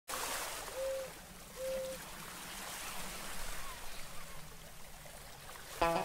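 Steady wash of water, like surf running up a beach, with two short, even tones in the first two seconds. A guitar-led music track comes in near the end.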